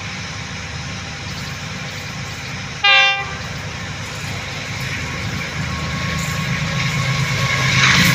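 Approaching diesel locomotive, its low engine rumble growing steadily louder. About three seconds in, its horn gives one short, loud blast.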